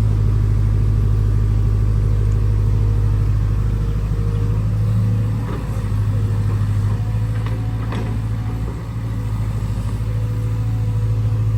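Heavy diesel engine running steadily with a low hum, dipping slightly in level a couple of times, with a few faint ticks in the middle.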